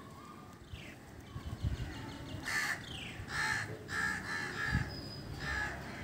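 Crows cawing: several harsh caws in a row through the second half.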